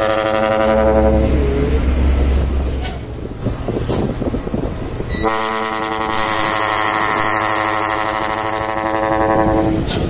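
Dump truck's roof-mounted trumpet air horns blowing a steady chord, a "kapal darat" ship-style horn. One blast cuts off about a second in, leaving truck engine and road noise, and a second long blast starts about five seconds in and lasts about four and a half seconds.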